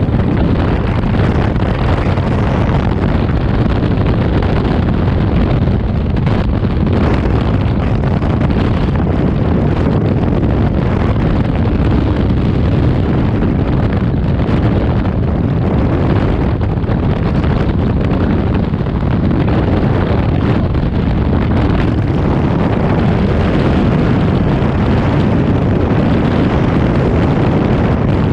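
Loud, steady rush of freefall wind on a skydiver's camera microphone, with most of its weight in the low end.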